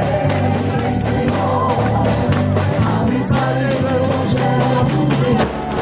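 Music with singing over a steady drum beat and bass.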